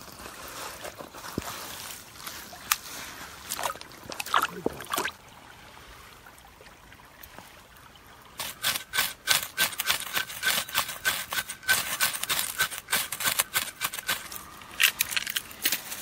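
Hands scraping and digging through loose, crumbly soil, giving scattered crunchy rustles. About halfway through, a dense run of rapid crackling clicks takes over for several seconds.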